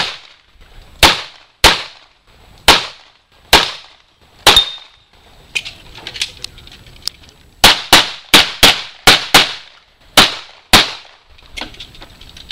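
Pistol fire on a practical-shooting stage. About six shots come roughly a second apart, one followed by a brief metallic ring. After a pause of about three seconds with only faint clicks, a faster run of about eight shots follows, several in quick pairs.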